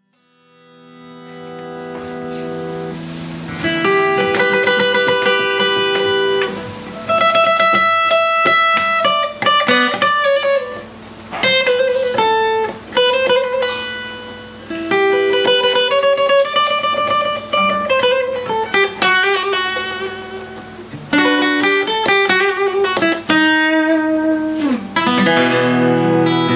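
Solo acoustic guitar playing a plucked instrumental introduction to a sevdalinka, a melody of ringing single notes over a low bass note. It fades in from silence over the first few seconds.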